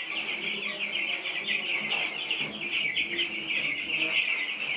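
A flock of week-old broiler chicks peeping without pause, a dense chorus of many short, falling cheeps.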